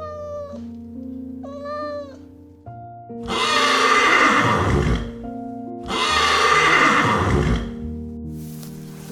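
A cat meows twice, then a horse neighs twice, each neigh about a second and a half long and louder than the meows, over steady background music.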